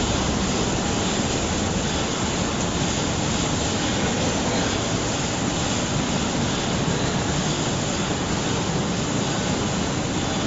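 Steady, even machine noise of a valve-bag packing line running, with belt conveyors carrying filled bags. There are no distinct knocks or rhythm, just a constant industrial din.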